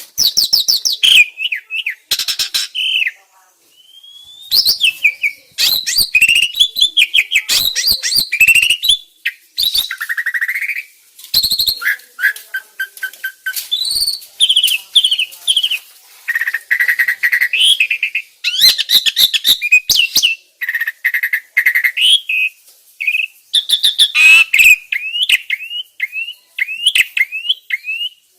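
Starling song: a long, varied run of whistles, rising and falling slurred notes and fast clicking chatter, broken by short pauses.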